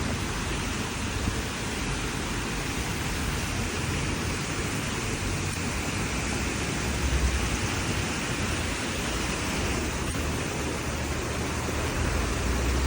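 Everyday outdoor ambience heard through a window: a steady hiss of distant traffic and town noise, with low rumbles swelling about seven seconds in and again near the end.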